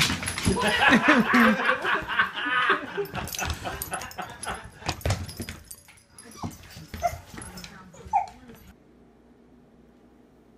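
A dog whining and yipping in a run of high, gliding calls for about three seconds, then dying down to a few scattered softer sounds.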